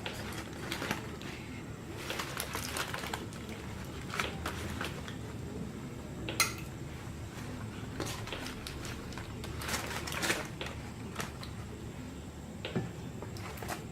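Scattered light clicks, taps and scraping rustles of utensils and food being handled, with one sharper click about six and a half seconds in.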